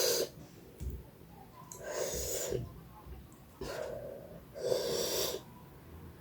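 Close-up breathy mouth sounds of someone eating spicy instant noodles: about four short noisy breaths and slurps, each under a second, a second or so apart.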